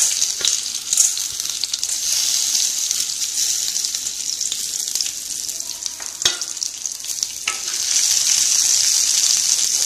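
Chana dal and urad dal sizzling as they fry in a tablespoon of hot oil in a pan, being lightly roasted. A few sharp knocks come through the sizzle, and the sizzle grows louder about eight seconds in.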